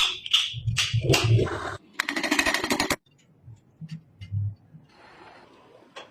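Workshop tool noises: a string of uneven scrapes and knocks with low thuds, then a one-second burst of very rapid rattling about two seconds in, then a few faint taps.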